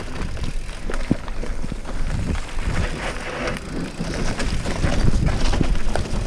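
Vitus Sentier hardtail mountain bike on Maxxis Ardent tubeless tyres riding a dirt forest trail: tyres rolling over dirt and leaf litter, with frequent rattles and knocks as the bike goes over bumps and roots.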